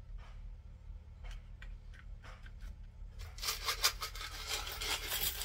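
Small sea shells clicking against each other as a stick pushes them around, a few faint ticks at first, then a denser clatter of shells from about three seconds in.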